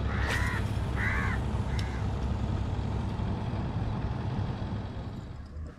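Boat engine running with a steady low rumble that eases near the end. A crow caws three times in the first two seconds.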